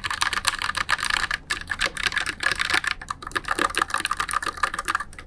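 Fast, continuous typing on a Tsunami MKS-68 low-profile mechanical keyboard fitted with red (linear) switches: a dense run of key clacks with a slightly sharp, high edge.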